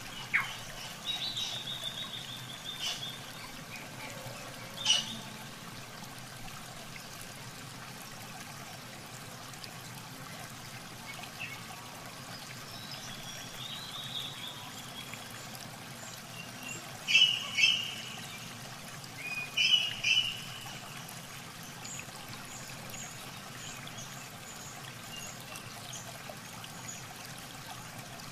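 Steady trickling water with birds chirping now and then; the loudest calls are a few sharp chirps about two-thirds of the way through, followed by faint high repeated notes.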